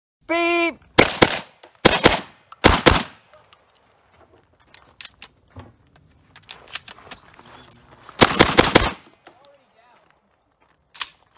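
Franchi SPAS-12 12-gauge shotgun firing 00 buckshot: a short beep, then three quick pairs of shots, a few seconds of light clicks as two shells are loaded by hand, then four shots in rapid succession.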